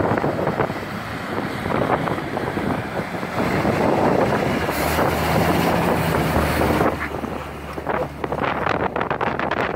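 Engine of a Berliet off-road fire truck running as the truck drives slowly past at close range, with a low steady hum, and wind buffeting the microphone.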